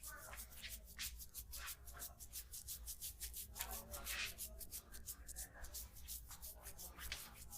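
Hands rubbing quickly over a person's head and neck during a massage: a faint, fast run of short strokes of skin on skin and hair, several a second.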